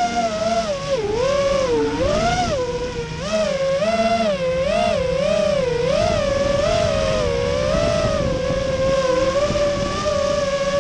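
High-pitched whine of RC aircraft brushless electric motors and propellers, rising and falling in pitch over and over, with a rough rushing noise underneath.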